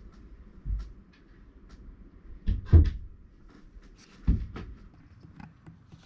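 A few dull knocks and thumps with scattered small clicks, the loudest a double thump about two and a half seconds in, over a faint steady low hum.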